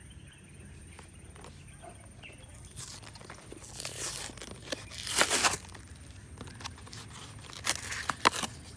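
Cardboard backing of a plastic blister pack being torn open by hand, in a few rough tearing bursts, the loudest about five seconds in and another pair near the end.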